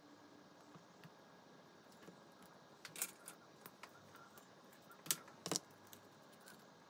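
Quiet handling noise at a workbench: small clicks and taps of hands working a roll of tape and tools on a cutting mat, with two sharper clicks close together about five seconds in.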